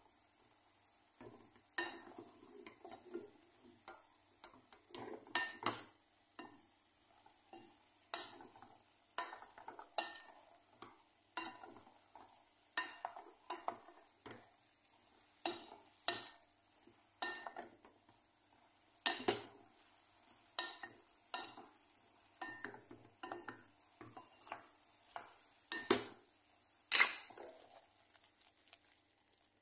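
A spatula stirring food in a cooking pot, scraping and knocking against it in irregular strokes about once a second, the loudest near the end.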